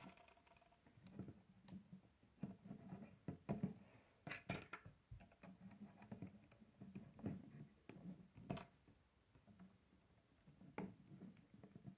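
Faint, scattered clicks and taps of plastic K'nex rods and connectors being handled and snapped together.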